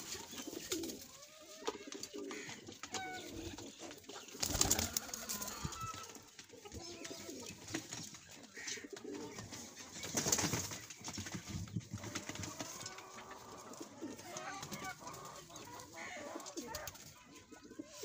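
Domestic pigeons cooing softly in a loft, with two short noisy bursts about four and ten seconds in.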